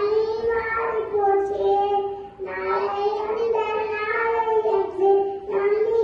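A young boy singing a Tamil song into a microphone, holding long notes that waver slightly in pitch, with short breaks between phrases.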